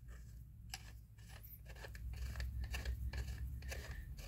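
Faint, irregular metallic clicks and scrapes as the threaded sleeve of a BMW N55 fuel-injector installation tool is turned by hand onto the end of a fuel injector, over a low steady hum.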